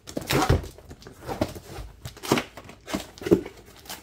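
Cardboard box being opened and handled by hand: the flaps pulled open and the box knocked and scraped, with a run of irregular thunks and rustles.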